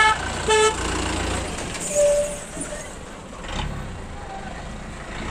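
Two short vehicle horn toots in quick succession at the start, over the steady low running of jeep engines as vehicles pull away.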